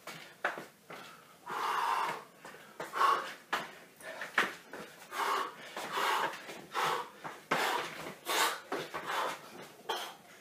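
A man breathing hard, with loud, rough breaths about once a second from the exertion of solo judo shadow drills, and sneakers scuffing on a tiled floor as he steps and turns.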